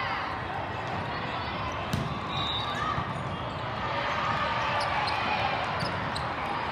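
A volleyball being hit, one sharp smack about two seconds in and a few fainter taps later, over a steady din of voices in a gym.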